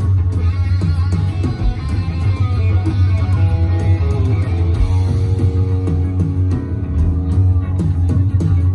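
Loud live punk rock band playing: distorted electric guitars, bass guitar and drums.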